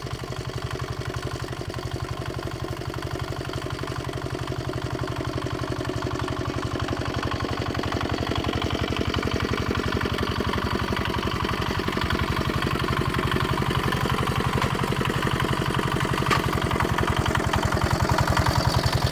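Walking tractor's engine running steadily with an even, rapid chug, growing gradually louder, on a test run after repair.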